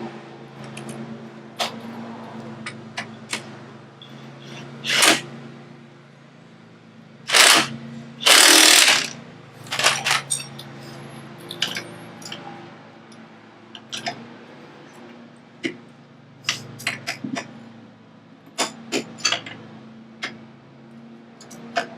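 Short bursts of a power tool driving the front hub's bolts home, the longest about a second, among many sharp metallic clicks and clinks of tools and parts. A steady low drone runs underneath.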